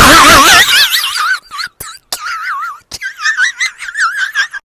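A loud, high-pitched warbling squeal in a voice-like tone, its pitch wobbling rapidly up and down, broken by a few short gaps.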